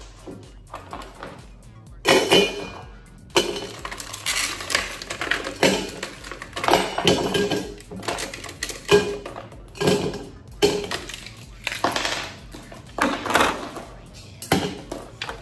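Ice cubes pushed out of a silicone ice-cube tray drop one after another into a tall metal tumbler, each landing with a short clink or clunk, over background music.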